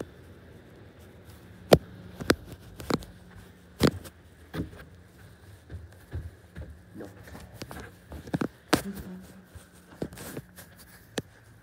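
Phone being handled and carried: irregular sharp knocks and rubbing on the microphone, about eight loud ones spread through, over a faint steady low hum.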